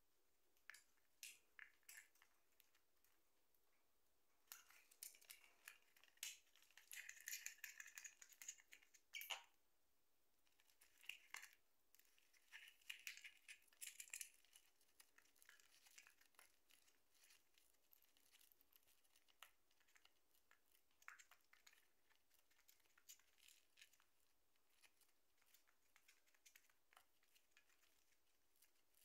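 A rosy-faced lovebird chewing and tearing a cardboard tube with its beak: faint crackling, crunching and tearing in two busy spells in the first half, then scattered small clicks.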